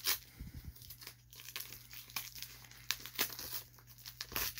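A brown paper mailer being slit with a box cutter and torn open by hand: a run of short, irregular paper rips and crinkles, the loudest near the end.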